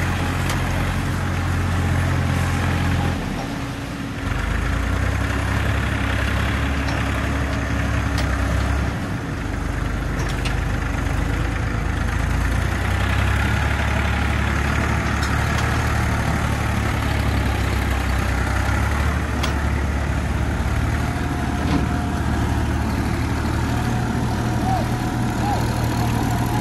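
Diesel tractor engine labouring under load as it drags a loaded thresher through deep mud, its low drone changing pitch a few times as the revs rise and fall.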